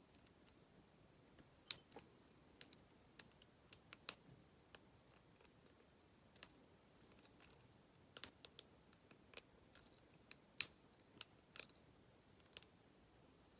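Irregular small sharp clicks and ticks of a lock pick and tension wrench working inside a Master Lock 410 lockout-tagout padlock, about one or two a second, with a quick double click near the middle.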